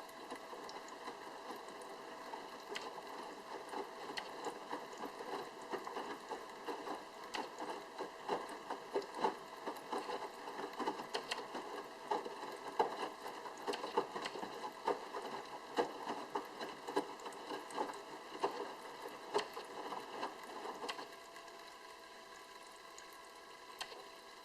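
Sharp drum washing machine in its wash cycle: laundry and water sloshing and slapping in the turning drum over the steady hum of the pump circulating the water. The tumbling stops about 21 seconds in, leaving the hum.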